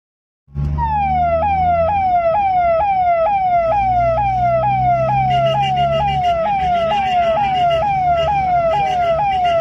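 Electronic siren-like sound effect: a tone that slides down in pitch and jumps back up, about twice a second, over low sustained bass notes that step to new pitches every second or two. It starts about half a second in.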